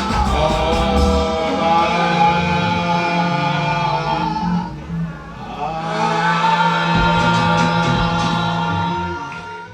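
Choir singing a hymn with instrumental accompaniment, in two long held phrases with a brief lull about halfway, fading out near the end.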